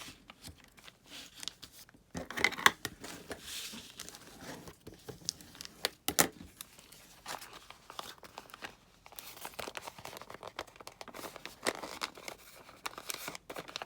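A sheet of paper being folded and creased by hand: irregular rustling and crinkling with scattered sharp crackles.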